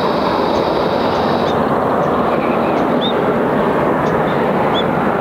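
Boeing 737-800 on final approach with landing gear down, its CFM56-7B jet engines making a steady roar. A high thin whine over the roar stops about a second and a half in.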